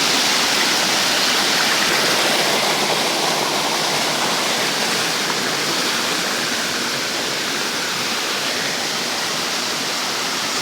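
Steady rush of flowing water, easing slightly about four seconds in.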